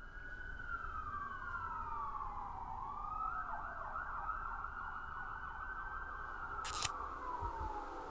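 Emergency vehicle siren wailing, its pitch sliding slowly down and back up, then warbling fast from about three and a half seconds in before sliding down again, over a low rumble. A brief sharp click near the end.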